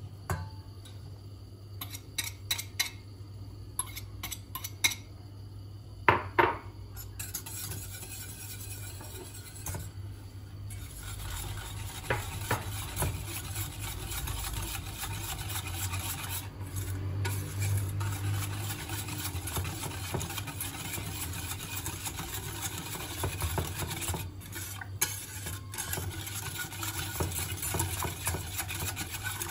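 A few sharp taps in the first several seconds, then a wire whisk stirring steadily in a stainless steel pot, scraping and clinking against the metal as powder is whisked into milk for muhallebi.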